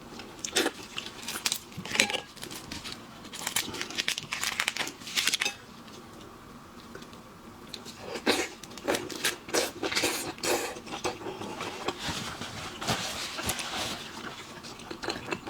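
Steamed shrimp shells being cracked and peeled apart by hand, a run of irregular crackles and crunches in bouts, with crunching bites.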